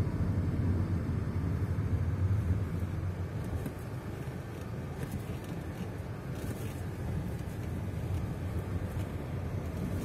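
Steady low rumble of a car's engine and tyres heard from inside the cabin while driving slowly, a little quieter from about three seconds in.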